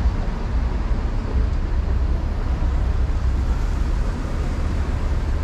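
Street traffic: a steady mix of car and van engines and tyres on a narrow city street, with a deep, constant rumble.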